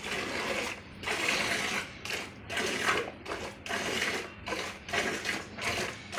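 Cow being milked by hand: rhythmic squirts of milk hissing into a pail, about two a second.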